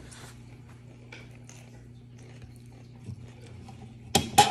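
Quiet eating at a table: faint clicks of a fork on a plate and chewing over a steady low hum, then two sharp, loud clicks about four seconds in.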